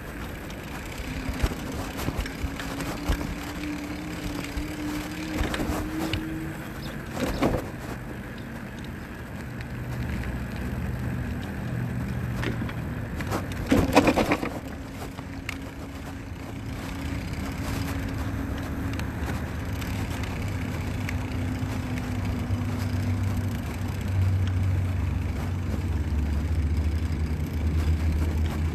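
Riding a bicycle along an asphalt road: steady rolling and wind noise with a low rumble that grows towards the end. A thin hum rises in pitch over the first few seconds and another returns in the middle, and there are two sharp knocks, about seven and fourteen seconds in, the second the loudest.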